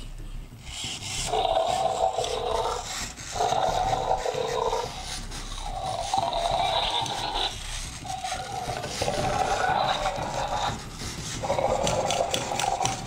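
Zoomer Indominus Rex robot dinosaur toy playing its electronic roars through its small speaker: a run of about five growling roars, each a second or two long with short gaps, as the toy goes into its angry mode.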